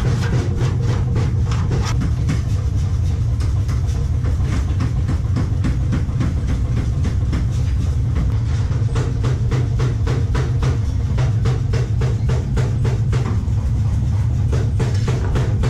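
Hand lever shear cutting old painted steel sheet, with many sharp metallic clacks and crunches at a few a second, over a steady loud low hum.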